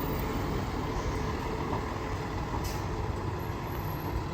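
Fire truck engine running with a steady low rumble.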